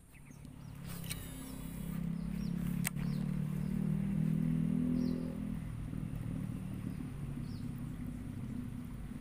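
A small engine running, with a steady low hum that grows louder over the first five seconds and then eases off a little. Faint short high chirps recur every second or so, and there is one sharp click about three seconds in.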